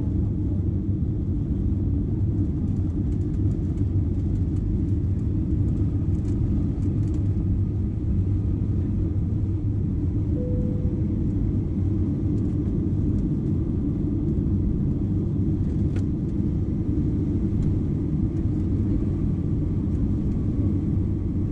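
Steady cabin noise of an Airbus A320 in flight, heard from a window seat: an even low rumble of the engines and the air rushing past the fuselage. A single faint click comes about three quarters of the way through.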